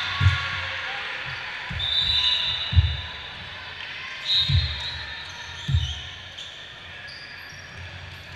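A volleyball bounced on a wooden gym floor: about five low thumps, roughly a second apart.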